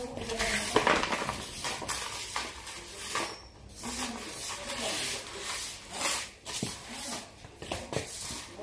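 Soft-bristled broom swishing across a tiled floor in short repeated strokes, sweeping scraps into a plastic dustpan, with the scraps scraping and rattling in the pan.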